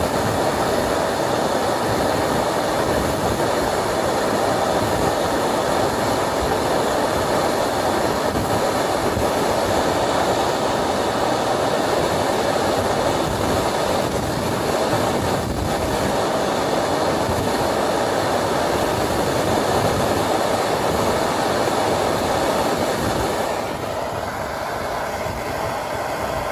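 Handheld gas blowtorch flame hissing steadily as it heats a seized lower ball joint taper, with a splitter wedged in, to free it. The hiss drops slightly in level near the end.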